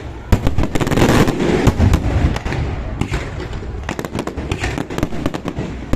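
Aerial fireworks going off. A dense rapid volley of bangs and crackling starts about a third of a second in and eases after about two seconds, followed by scattered sharp reports over a low rumble.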